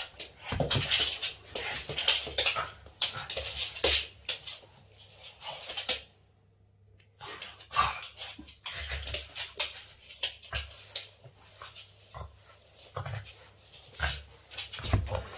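A Boston terrier playing rough with a person's hand: noisy breathing and mouthing, with many sharp clicks and scrabbles of its claws on the hard floor. The sound drops out to near silence for about a second, about six seconds in.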